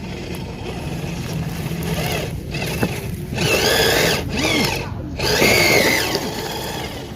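Small electric motor and gearbox of a radio-controlled scale off-road truck whining as it drives. The whine rises and falls in pitch with the throttle from about three seconds in.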